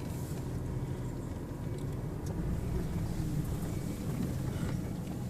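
Car running, heard from inside the cabin: a steady low rumble of engine and tyres while it drives slowly.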